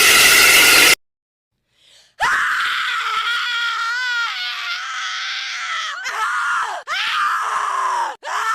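Screamer jump-scare sound effect: a harsh, noisy screech cuts off suddenly about a second in, and after a short silence a shrill scream starts, one long wavering cry followed by shorter cries that each fall in pitch at the end.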